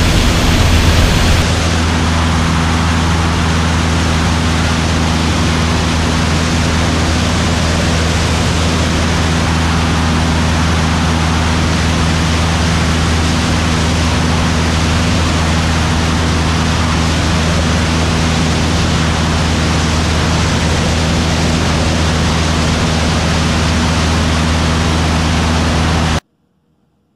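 Bücker Jungmann biplane's engine running steadily in cruise flight, a constant low drone under heavy wind rush on the outside-mounted camera. The sound cuts off suddenly near the end.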